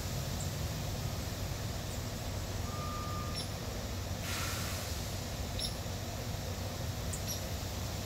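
Steady outdoor low rumble and hiss, with a few short, thin, high chirps, most likely small birds, scattered through it and a brief hiss of noise about halfway.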